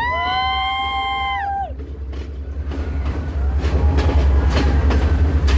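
A train horn sounds one long two-note blast, its pitch sagging as it cuts off after about a second and a half. Then the wheels clatter over the rail joints, in a steady clickety-clack that grows louder toward the end.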